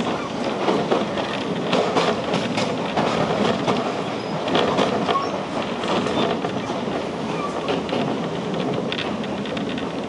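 Toyama Chiho Railway electric train running, heard from inside the front of the car: a steady rumble of wheels on the rails with irregular clicks and rattles throughout.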